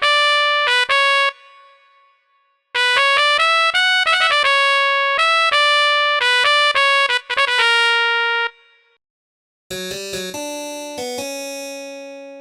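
Korg iM1 synthesizer app on an iPad playing quick melodic keyboard runs in a bright synth voice, with a short pause about two seconds in. About ten seconds in, a lower phrase in a different sound starts.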